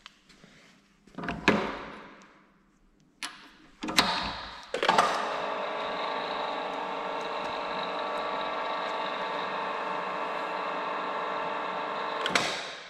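A few metal clanks as tooling is handled and fitted onto a pipe expander's shaft. Then, about five seconds in, the machine's electric drive starts and runs steadily with an even hum for about seven seconds, and stops with a clunk near the end.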